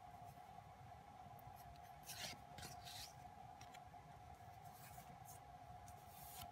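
Faint rustling and sliding of stiff photocards as they are shuffled and rubbed against one another in the hands, with a few short brushing strokes about two to three seconds in. A steady faint hum runs underneath.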